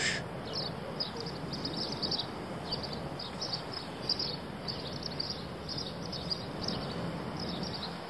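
Outdoor ambience: a steady hiss with frequent short, high chirps scattered through it.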